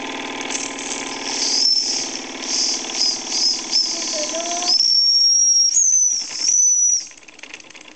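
Steam whistle on a late-1970s Wilesco toy stationary steam engine, blown in a few short high toots and then one long steady toot that cuts off about seven seconds in. The engine runs underneath for the first half.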